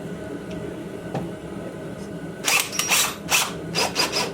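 Cordless drill driving self-tapping screws into a plastic fender in several short, loud bursts in the second half.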